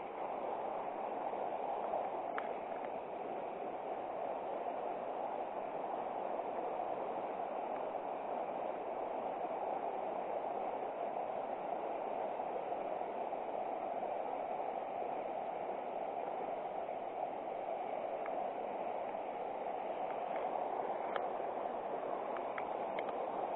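River water rushing and gurgling steadily, with a few faint ticks over it.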